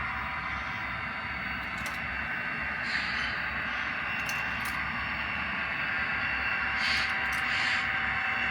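HO scale model train running on the layout: a steady mechanical whine and hiss, with a few short light clicks scattered through.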